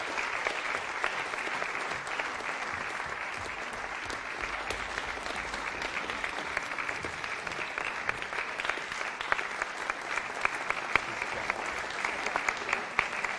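Audience applauding, a dense steady clapping with single claps standing out more in the second half.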